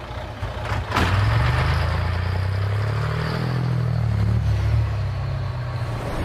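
A racing truck's engine at high revs, loud after a sudden start about a second in, its pitch rising and then falling away.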